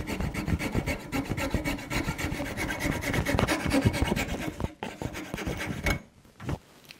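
Fretsaw cutting by hand into a wooden strip: rapid rasping back-and-forth strokes as the blade saws out a notch. The strokes pause briefly near five seconds in and stop about six seconds in.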